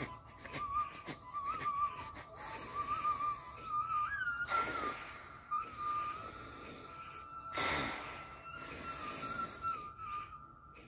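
Alternate-nostril breathing (anulom vilom): two long, audible breaths drawn through one nostril, about four and seven and a half seconds in, each lasting about a second. A thin, wavering high tone runs underneath.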